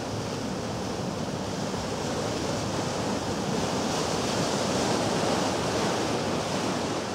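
Water rushing and churning in a steamboat's foaming wake against the hull, a dense, steady rush.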